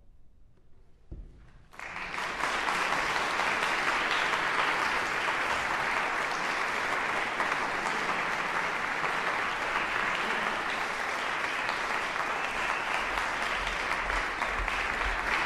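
Audience applauding, breaking out about two seconds in after a short hush and then holding steady.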